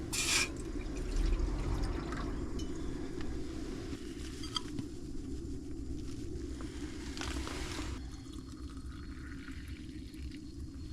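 Water running steadily with a dense, low rush, with a brief sharper splash-like sound at the start and another around seven seconds in.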